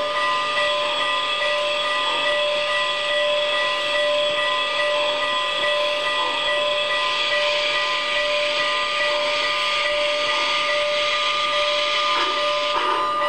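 MTH RailKing Union Pacific Big Boy model steam locomotive's onboard sound system playing a steady steam hiss while the engine stands, with chuffing starting near the end as it begins to pull away.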